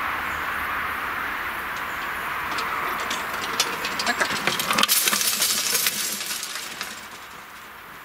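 Mechanical cable-pull level-crossing barrier rising, its hanging grille of rods and hooks clinking and rattling as the boom swings up. A steady rushing noise runs under it and stops suddenly about five seconds in. The clatter is loudest around then and settles as the boom comes to rest.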